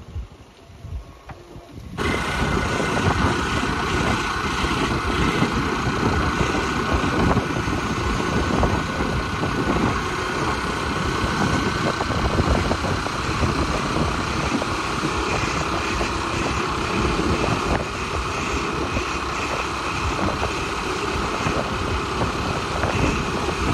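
Riding along a road in a motor vehicle: steady engine and road noise with heavy wind rumble on the microphone, starting suddenly about two seconds in after a quieter outdoor background.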